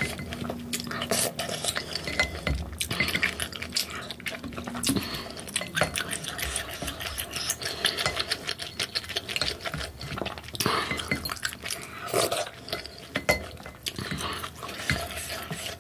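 Close-miked eating sounds: a wooden spoon repeatedly clinking and scraping in a ceramic bowl of rice-cake and dumpling soup, with the broth sloshing, and the eater chewing in between.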